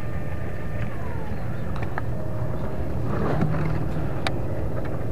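A small boat motor running steadily with a low hum, and a sharp click just after four seconds in.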